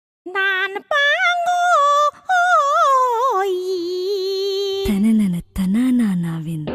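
A voice singing alone, with no instruments under it: a high, ornamented melody with quick rising and falling turns, then about five seconds in a lower voice takes over with a slow, wavering line.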